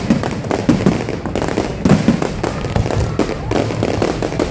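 Fireworks display: many bangs and crackles going off in quick succession, overlapping with no pause.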